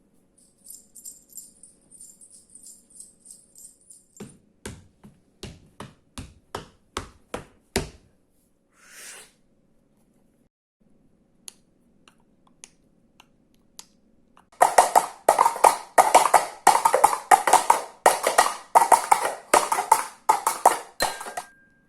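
A series of sharp taps and clicks: a short high rattle at first, then about eight separate taps growing louder, and after a pause a fast, dense run of knocks near the end.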